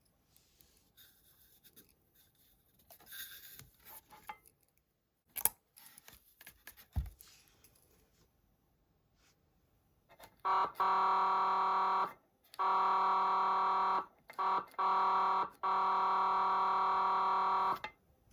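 Patlite SAP-500BWK-GV siren amplifier sounding a steady horn tone through its loudspeaker in five or six blasts at one pitch, most of them a second or more long. A few faint clicks and one thump come first.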